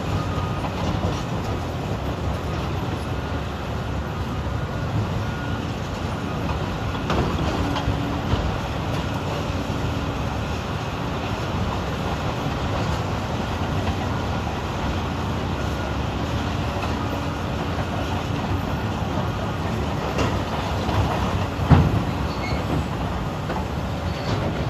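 Heavy diesel engines of Caterpillar 395 excavators and a haul truck running steadily under load, with scattered knocks of rock and steel as the buckets dig and dump. One sharp bang near the end.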